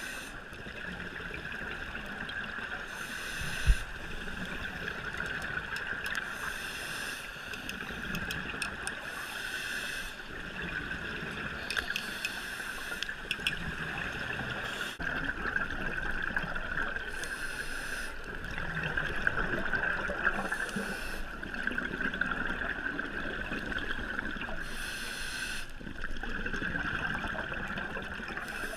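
Underwater recording of scuba divers: bursts of regulator exhaust bubbles rush out every few seconds over a constant high-pitched drone and water hiss. One sharp knock about four seconds in.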